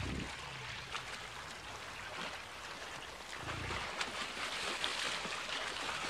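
Shallow river rushing steadily over a rocky bed, with a few short low rumbles now and then.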